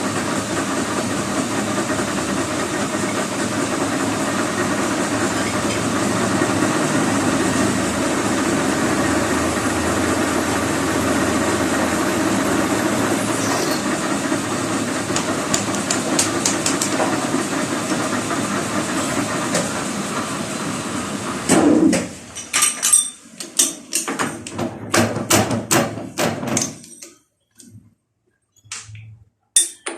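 Metal lathe running steadily, then stopping abruptly about two-thirds of the way through. A series of sharp metallic clicks and knocks follows.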